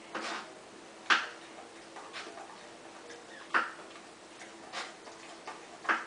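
Alaskan malamute chewing asparagus: a series of sharp crunches about once a second, some louder than others.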